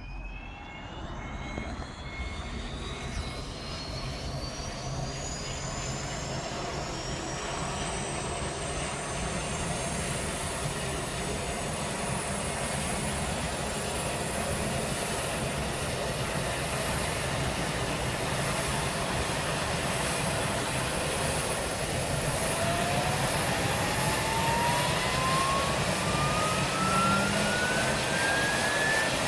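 AgustaWestland AW139 helicopter's twin turboshaft engines and main rotor running up on the helipad before take-off. The turbine whine rises steadily and grows louder, and a second, lower whine begins climbing near the end.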